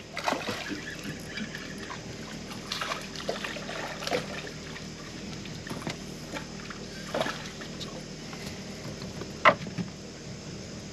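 Water splashing and sloshing beside a small boat as a hooked fish is brought in, with a few sharp knocks and clicks, the loudest about nine and a half seconds in.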